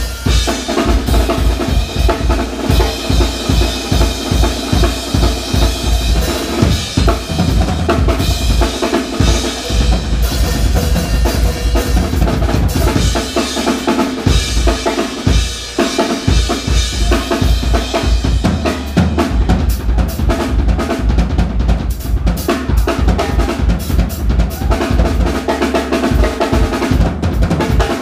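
Live band playing loudly, with a drum kit's steady kick-and-snare beat to the fore under keyboard and guitar.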